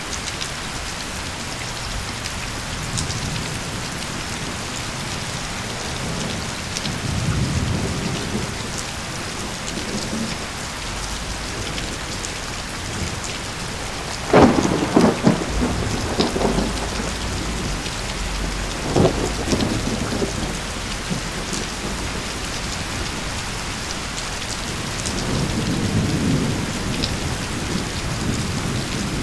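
Steady rain with thunder: low rolling rumbles come and go, and about halfway through a loud crackling thunderclap breaks in, followed a few seconds later by another sharp crack.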